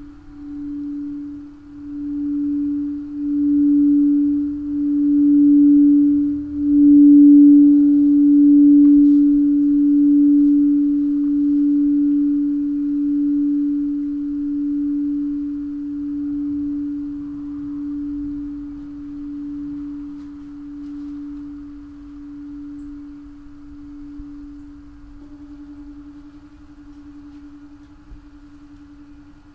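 Crystal singing bowl ringing one steady, nearly pure tone. It swells with a wavering pulse over the first seven seconds or so, then slowly fades.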